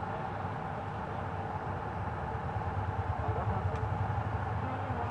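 Steady low mechanical rumble, like a running engine, growing a little louder in the second half.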